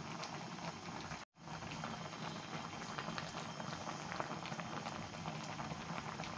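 Pot of udon soup at a rolling boil: steady bubbling with many small pops, broken by a brief dropout about a second in.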